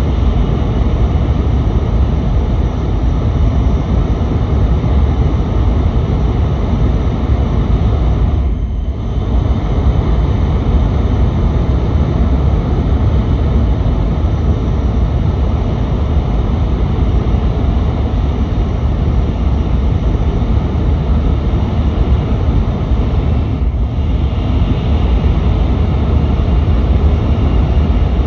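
Cabin running noise of an N700S Kamome shinkansen at speed, heard inside the car: a steady deep rumble with a rushing hiss over it, dipping briefly twice.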